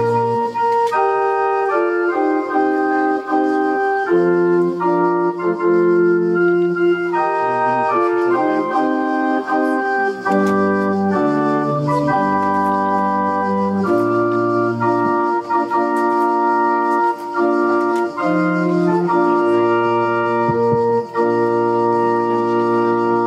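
Organ playing slow, sustained chords over a bass line, the chords changing every second or two.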